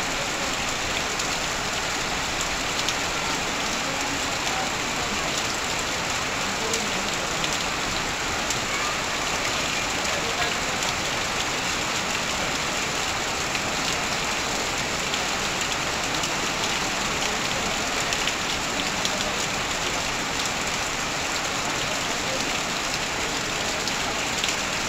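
Heavy rain falling steadily on corrugated tin roofing and sheet-metal fencing, a dense even wash flecked with countless small drop ticks, with water streaming off the roof edge onto the ground.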